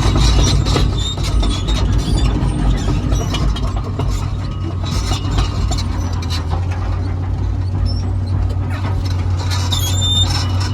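Komatsu PC200LC-8 excavator travelling on its crawler tracks: the diesel engine runs steadily under repeated clanking of the steel track links, with short high squeaks scattered through.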